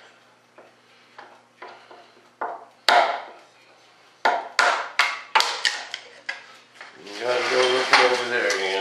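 Hand tools knocking on the fiberglass rudder mold and its wooden flange as it is worked apart: faint taps, one loud knock, then a quick run of sharp strikes. From about seven seconds in there is a louder, sustained grating scrape.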